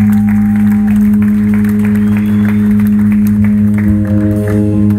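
Live instrumental post-rock band holding a loud, steady, low electric-guitar drone through the amplifiers, with scattered audience clapping over it. New sustained guitar notes come in near the end.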